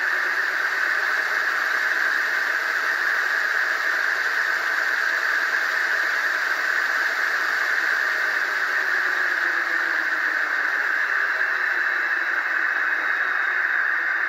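Zimo sound decoder in a model ÖBB 1043 electric locomotive, playing the electric-loco sound through its small speakers: a steady hiss of blowers with faint whining motor tones that shift in pitch, one falling slowly in the second half.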